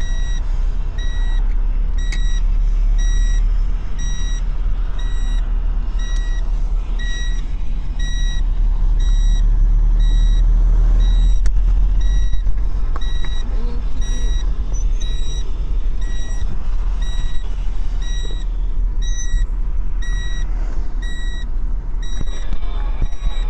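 A car's electronic warning beeper sounding a short, high beep about once a second, over the low rumble of the vehicle; the beeping stops near the end.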